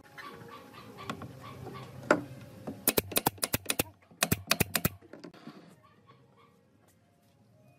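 Nail gun firing two quick volleys of about half a dozen sharp shots each, driving nails through a small wooden brace into an upright post. Before it come light wood handling sounds and a single sharp knock.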